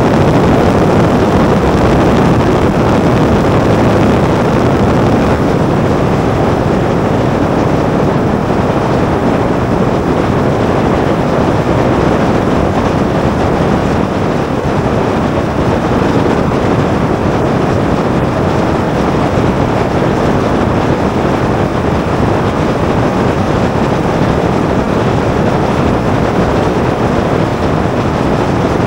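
A Columbia 400's turbocharged six-cylinder engine and propeller running steadily at takeoff power through the takeoff roll and lift-off, mixed with heavy wind rush over the microphone.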